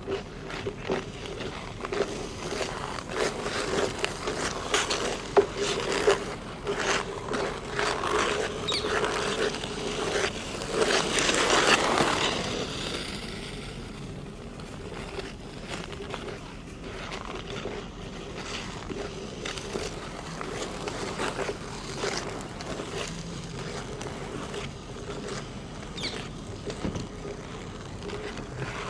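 Ice skate blades scraping and cutting across hard natural black ice, stroke after stroke in an uneven rhythm. About eleven seconds in, one long, louder scrape passes close, after which the skating is fainter.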